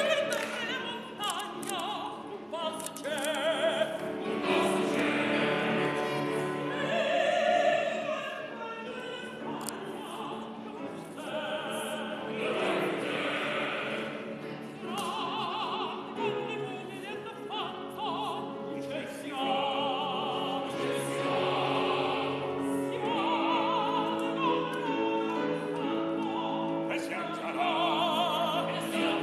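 Operatic singing: a mezzo-soprano holding long notes with wide vibrato over piano accompaniment.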